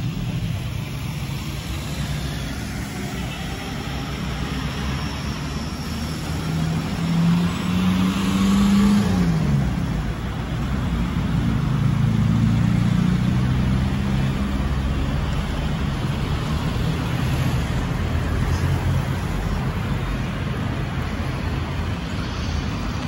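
Low, steady rumble of a departing Boeing 787-9 jet airliner climbing away, mixed with a road vehicle's engine that swells about seven seconds in, drops in pitch near nine seconds, and swells again around twelve seconds.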